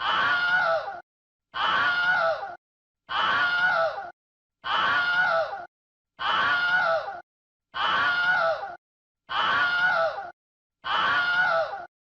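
A recorded human scream looped over and over: eight identical screams, each about a second long, come one every second and a half or so, with silence between them.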